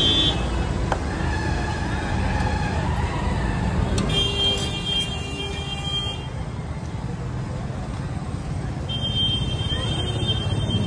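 Street traffic noise: a steady low rumble of passing vehicles, with a high-pitched vehicle horn held for about two seconds around four seconds in and sounding again near the end.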